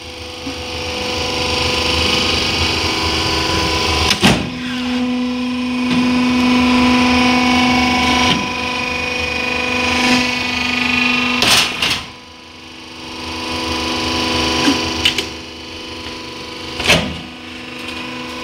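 Wood sawdust pallet-block extruder running, a steady hum of several constant pitches with a few sharp knocks. The hum drops briefly twice, near the start and about two-thirds of the way through.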